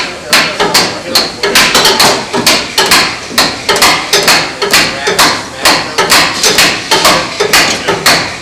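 Hammer blows on a steamed wooden hull plank and the gear holding it, struck by several people in a quick, irregular series of about three hits a second, as the plank is worked into place against the ship's frames.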